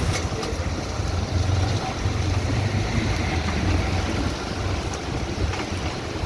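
Heavy rain pouring in a windstorm, with gusts buffeting the microphone as a fluctuating low rumble.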